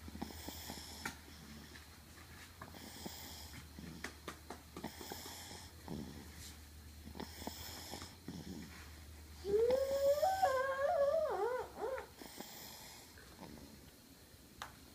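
Rhythmic snoring, one wheezy breath about every two and a half seconds. About nine and a half seconds in, a brief high, wavering whine-like vocal sound, louder than the snoring, lasts a little over two seconds.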